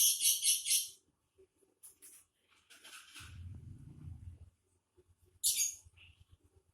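Lovebird chirping: a rapid run of about five shrill chirps at the start, a couple of short calls later and two more near the end. A low rumble comes in around the middle.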